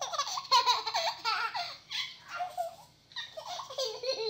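A baby laughing and babbling in short high-pitched bursts, with a brief pause about three seconds in.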